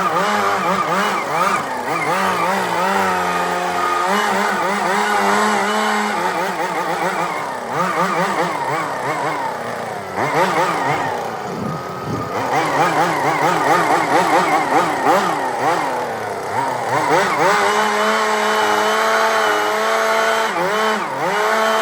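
A machine's engine running under changing load, its pitch rising and falling again and again, with a short drop in level about twelve seconds in.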